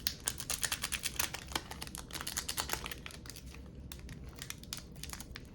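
Foil wrapper of a Pokémon booster pack crackling in rapid small clicks as fingers pick and pull at its sealed edge. The clicks are dense for the first three seconds, then thin out. The pack is glued tight and is not tearing open.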